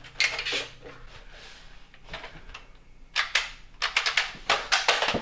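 Nerf blaster firing: a run of sharp shots, scattered at first, then coming in quick bursts that grow denser toward the end.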